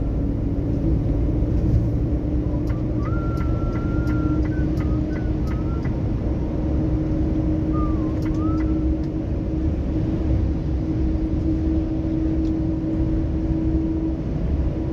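Heavy truck under way on a wet road, heard from inside the cab: a steady engine and road drone with a hum that rises slightly in pitch. A few short, high chirping tones and faint ticks come about three seconds in and again around eight seconds.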